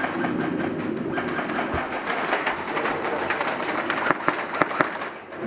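Airsoft gun firing a long stream of rapid shots, a dense run of sharp clicks, with a few louder cracks about four to five seconds in; the stream stops just before the end.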